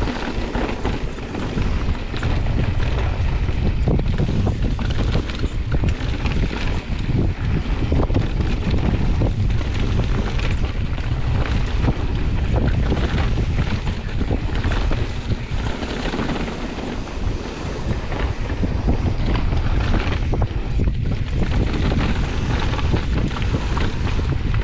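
Wind buffeting the microphone of a camera on a mountain bike descending a dirt trail at speed, over the rumble of tyres on loose dirt and gravel, with short rattling knocks from the bike over bumps throughout.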